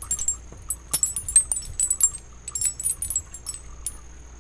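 Homemade sea glass wind chime, strands of sea glass pieces on line, jostled as it is held up, the pieces clinking against each other in quick, irregular, high clinks.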